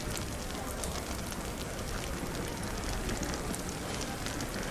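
Fireplace crackling: many small quick pops and snaps over a steady hiss, with a low rumble beneath from the cafe background it is mixed with.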